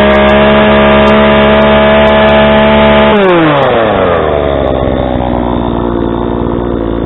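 45cc Blue Max two-stroke chainsaw held at full throttle for about three seconds, then dropping back to idle. Its exhaust has just been modified and its carburettor retuned: not much louder, but it breathes a little better.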